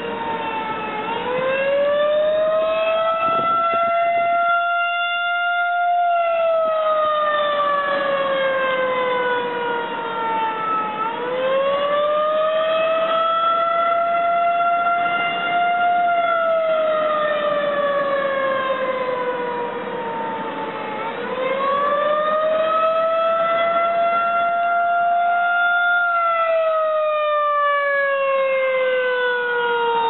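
Federal Signal Model 2001 outdoor warning siren sounding the Attack signal, a wail that rises over about five seconds and falls over about five seconds, three times over. It is heard from inside a car.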